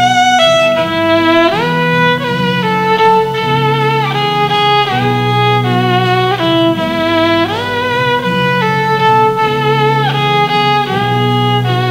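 Violin playing a slow melody with vibrato, twice sliding up to a held high note, over a low sustained accompaniment.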